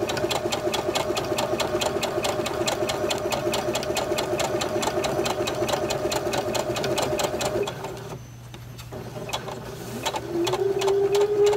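Domestic electric sewing machine stitching at a steady speed, its needle going up and down in fast, even strokes while it runs a long basting stitch along a seam. It stops about eight seconds in and starts up again about two seconds later.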